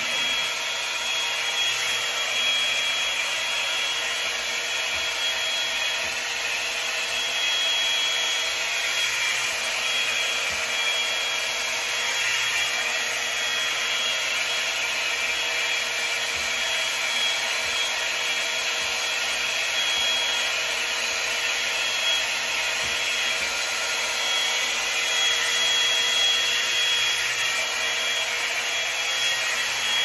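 Revlon One-Step hot-air brush running steadily on its fan and heater: a constant rush of blown air with a thin, high whine from the motor.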